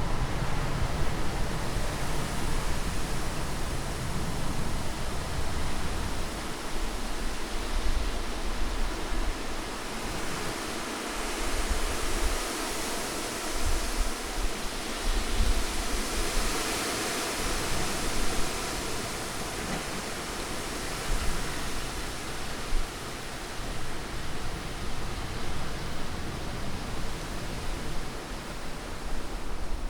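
Continuous wind ambience: a steady rushing hiss with a shifting low rumble, swelling brighter around the middle.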